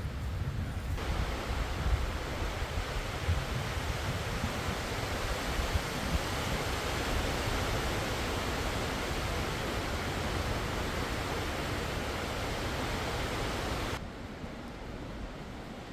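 Blizzard wind: a steady, even rushing hiss with a gusty low rumble of wind on the microphone. It stops abruptly near the end.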